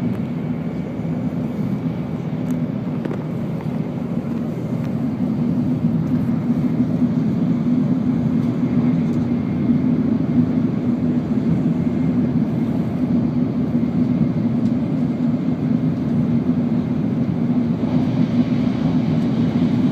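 Shinkansen bullet train running: a steady low rumble that grows slightly louder a few seconds in.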